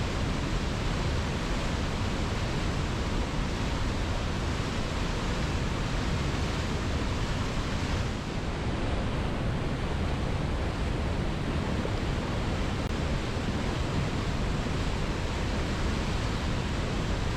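Waterfall rushing steadily, a dense even roar of falling water with no distinct events, dipping slightly in level for a moment about halfway through.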